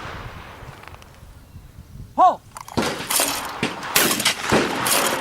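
A shout of "Pull" about two seconds in, then several shotgun shots over the next two seconds or so, each a sharp crack with a trailing echo, as clays are fired at on a sporting clays course.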